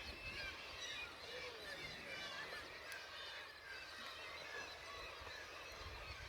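Faint chorus of many birds calling, with short overlapping calls and squawks going on without a break.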